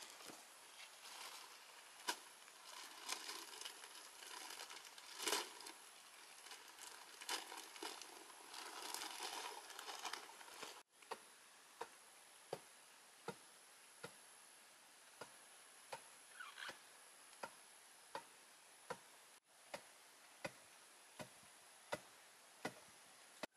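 Cardboard rustling and scattered knocks as the box is handled. Then a long wooden pestle pounds flour in a hollowed-log mortar, a sharp dull strike about every 0.7 s.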